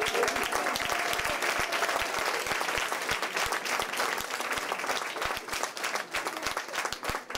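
Audience applauding: dense clapping from a room full of people that thins out toward the end.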